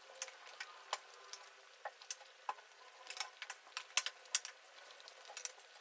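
Cutlery clinking and scraping against plates in quick, irregular clicks as Maggi instant noodles are eaten fast.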